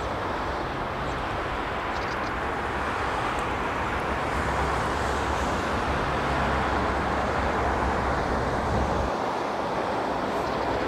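Distant jet engine noise of an Airbus A380 on approach, a steady rushing roar growing slowly louder.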